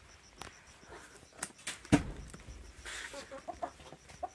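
A coconut dropping from the palm and landing with one heavy thud about two seconds in, after a few lighter knocks.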